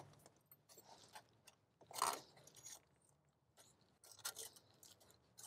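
Mostly near silence, broken by a few faint, short scrapes and clicks of metal parts being handled, the loudest about two seconds in. The sound comes from the thermostat housing bracket being turned around and fitted on a VR6 engine.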